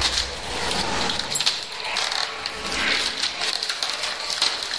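Clear plastic packaging crinkling and rustling as it is handled, with many small irregular crackles.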